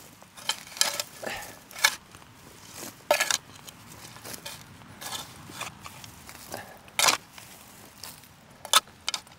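Metal spade scraping and scooping through ash, charcoal and stones in a burnt-out fire pit, in irregular sharp scrapes about one a second.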